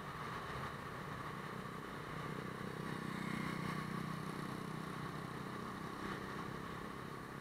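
Motorbike ride in town traffic: a scooter engine runs under steady road and wind noise. It grows louder for a second or two about three seconds in.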